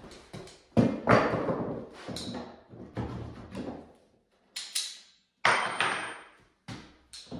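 Vice-grips knocking and clanking on door hinge pins as the pins are worked out of the hinges: a string of irregular sharp knocks, each dying away quickly, the loudest about a second in and one with a brief high metallic ring a little past halfway.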